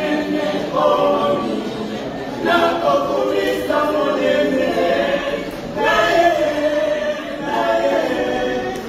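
A church choir singing together, many voices in phrases with brief breaks between them.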